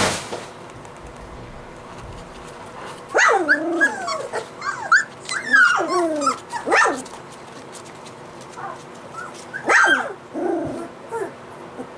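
Three-week-old golden retriever puppies yipping and whining in a string of high, sliding calls starting about three seconds in, with a sharp yelp near ten seconds and a few smaller calls after it.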